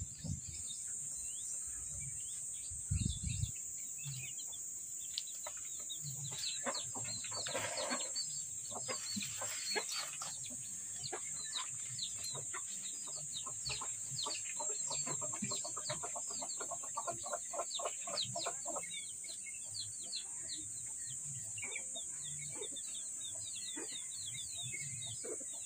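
Chickens clucking and small birds chirping in short calls, with a fast run of clucks in the middle, over a steady high-pitched insect drone. A couple of dull knocks come about three seconds in.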